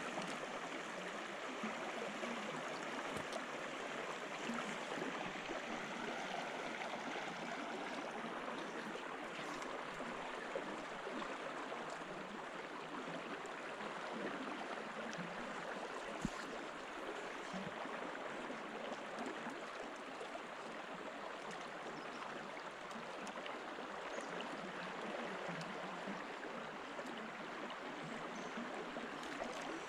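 Small river flowing: a steady rush of running water. There is a faint click about ten seconds in and another about sixteen seconds in.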